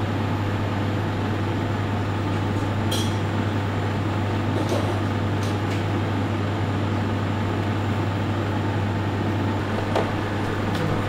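Steady hum and rush of a professional kitchen's ventilation, with a few light clinks about three, five and ten seconds in.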